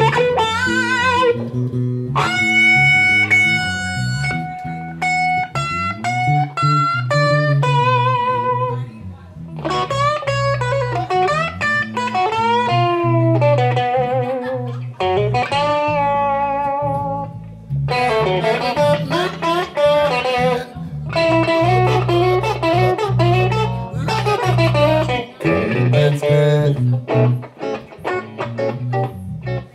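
Live blues-rock electric guitar lead over electric bass: long held notes bent and shaken with vibrato, in phrases broken by short gaps, over a steady bass line.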